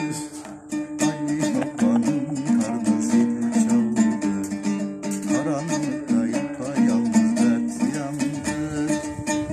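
Dombra, a two-stringed long-necked lute, strummed in a fast, steady rhythm. A held note rings under a melody that moves on the other string.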